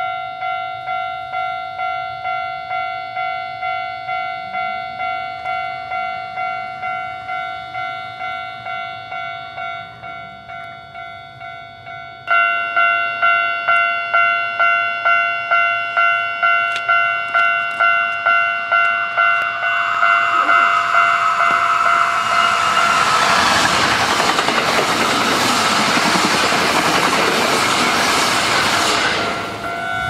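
Japanese level-crossing warning bell ringing its steady electronic kan-kan at about two strokes a second, louder from about twelve seconds in. About twenty seconds in, a Hankyu Series 1300 electric train passes over the crossing, and its running noise swells over the bell for several seconds.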